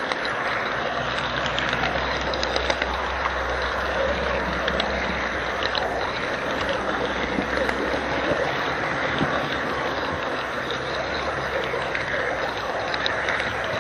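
HO-scale model train running, heard from a camera riding on it: a steady rushing whir of wheels on the rails and the locomotive's motor, with many small clicks from the track.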